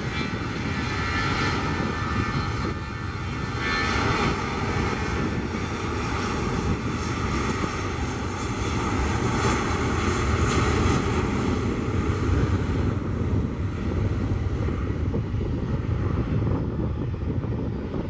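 Twin jet engines of an Airbus A320-family airliner running at high power as it rolls along the runway, a loud steady jet noise with a rushing hiss. The hiss thins out in the last few seconds as the aircraft moves away.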